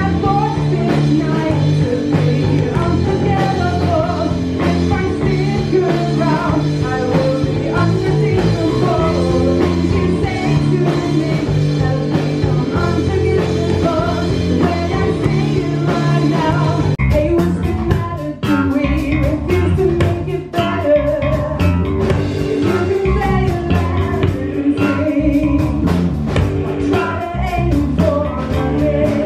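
Live rock band playing: a woman singing over electric guitar, bass guitar and drums. Sharper drum and cymbal hits come in during the second half.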